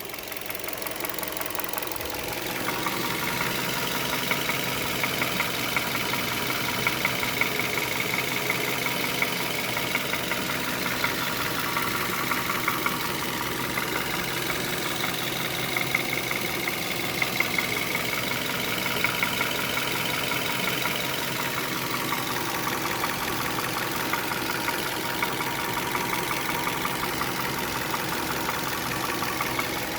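Hyundai Solaris G4FC 1.6-litre four-cylinder engine idling hot, heard close up from behind the engine block, with a knock running through the idle: the engine knock the owner is recording. It gets louder about two seconds in and then holds steady.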